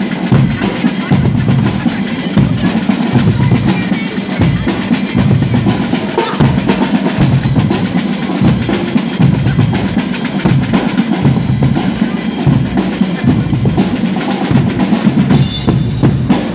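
Guggenmusik carnival band playing loudly: brass over snare drums and a steady bass-drum beat.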